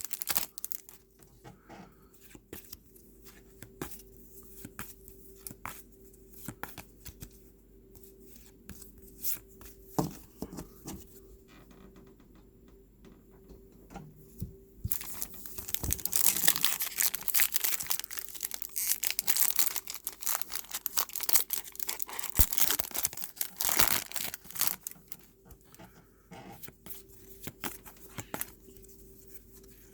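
A Topps WWE trading-card pack wrapper being torn open and crinkled by hand: scattered small rustles and clicks at first, then about halfway through a louder stretch of tearing and crinkling lasting around ten seconds.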